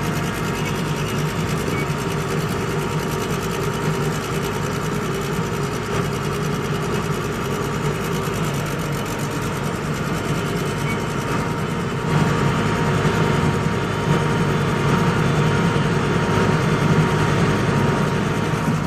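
Excavator's diesel engine running steadily under load as the bucket pushes a vibratory roller uphill, heard from the operator's cab; it gets louder about twelve seconds in.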